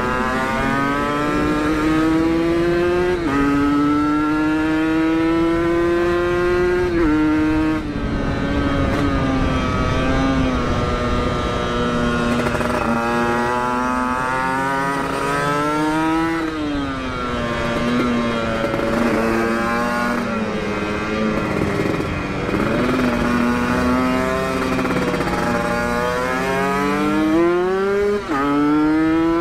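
Kawasaki Ninja motorcycle with an aftermarket Aitech exhaust being ridden hard, the engine climbing in pitch as it accelerates and dropping sharply at each upshift, first about three seconds in and again a few seconds later, then easing off and pulling up again through the middle and near the end.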